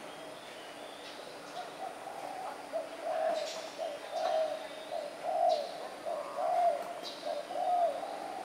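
Spotted dove cooing: a steady run of low, repeated coos, about two a second, starting about a second and a half in and getting louder from about three seconds. Faint high chirps come and go above the coos.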